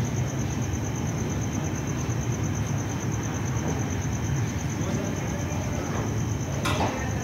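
A cricket chirping in an even, fast pulse at one high pitch over a steady low rumble, with a short click near the end.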